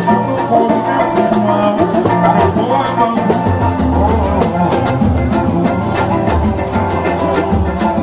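Music from a Brazilian percussion group: drums and percussion keeping a steady beat under plucked strings.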